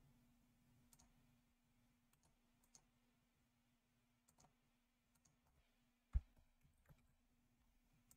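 Near silence with a few faint, scattered clicks from working at a computer, one louder click about six seconds in, over a faint steady hum.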